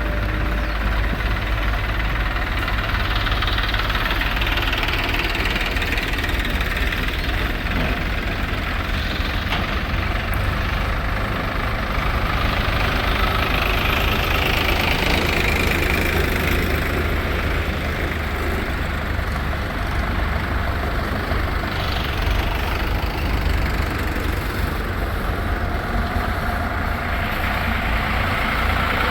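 Heavy machinery diesel engine, likely the JCB 3DX backhoe loader at work, running steadily with a deep rumble. Its sound swells and eases a few times as it is worked.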